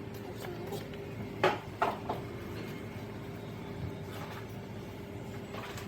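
Two sharp knocks about a second and a half in, followed by a lighter one, over a steady hum.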